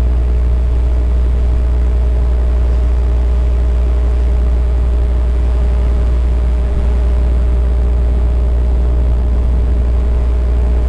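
Motorcycle engine running at a steady cruising speed: a constant drone with a heavy low rumble and an unchanging pitch.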